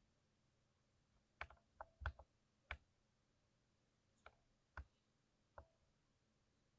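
Individual key presses on a lubed 60% mechanical keyboard, each a short clack. A quick run of about six keystrokes comes between one and a half and three seconds in, then three single presses spaced apart.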